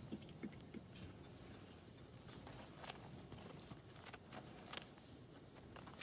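Near silence, with a few faint, scattered small clicks and rustles.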